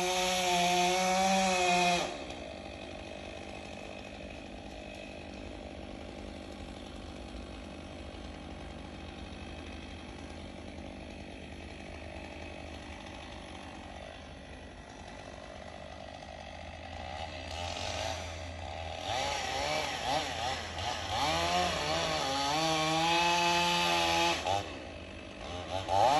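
Chainsaw running: fast and loud for the first two seconds, then dropping to a quieter steady low running, then revving back up from about 17 seconds in and running loud with a wavering pitch for the last several seconds.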